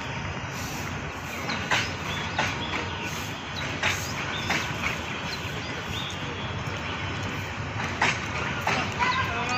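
Empty passenger coaches rolling slowly along the track: a steady rumble with irregular sharp clanks from the wheels and couplings.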